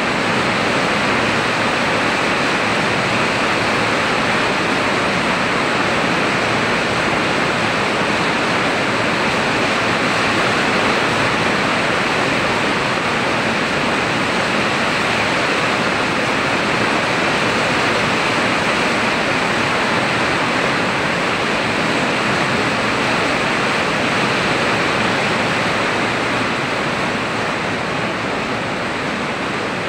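Heavy rain falling in a steady loud hiss, easing slightly near the end.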